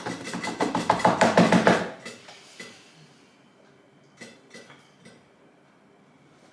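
Hands drumming rapidly on a tabletop in a drum roll, stopping about two seconds in. A few faint knocks follow.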